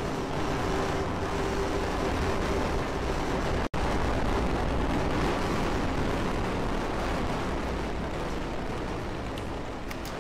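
SpaceX Falcon 9 first stage climbing after liftoff: a steady, noisy rumble from its nine Merlin engines that slowly fades as the rocket climbs. The sound cuts out for a split second about four seconds in.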